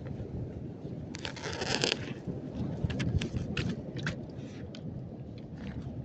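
Handling noise of a covered phone microphone: a low rumble with rustling and scraping, a burst of hiss about a second in, and a run of short clicks and scrapes in the middle.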